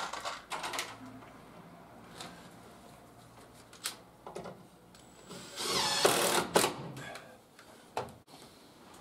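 Cordless drill run in one burst of about a second into the timber stair string, its pitch wavering as it works. A few sharp knocks of timber being handled come before and after it.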